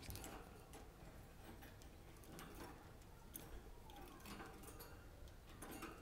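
Faint scattered clicks and ticks of budgies' claws and beaks on the wire cage bars and a plastic bead toy, with now and then a faint budgie chirp.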